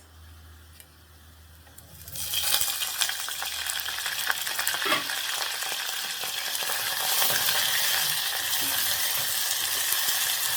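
Boiled meat added to a pan of hot oil with golden-brown onions, ginger and garlic: a loud sizzle starts suddenly about two seconds in and keeps frying steadily, with the clicks and scrapes of stirring.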